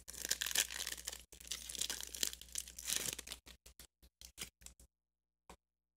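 Foil wrapper of a Pokémon Generations booster pack being torn open and crinkled by hand: dense crackling for about three seconds, then a few separate crinkles trailing off.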